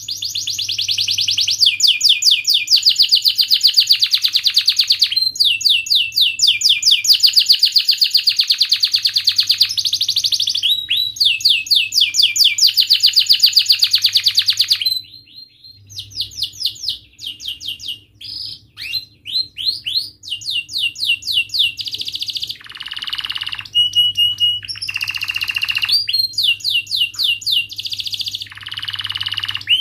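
Domestic canary singing: long, fast rolling trills of rapidly repeated high notes. About halfway through the song breaks into shorter phrases with pauses, including a brief steady whistled note.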